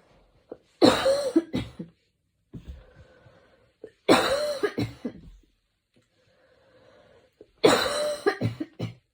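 A woman's coughing fit: three bouts of several coughs each, about three seconds apart, each opening with the loudest cough, with quieter breaths between the bouts.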